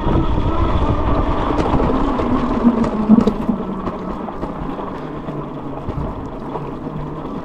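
Goat Power Motor Goat 1000-watt electric bike climbing a dirt hill on motor power alone: wind rumbling on the microphone and fat tyres on the dirt, with a faint motor whine underneath. The noise eases gradually through the climb.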